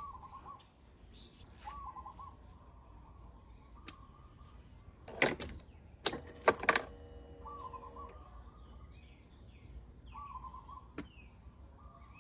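Ignition key being turned in a Honda Forza 300 scooter's key switch, with clicks and a metallic jingle of the key ring about five and six seconds in. A bird calls several times in short warbling bursts in the background.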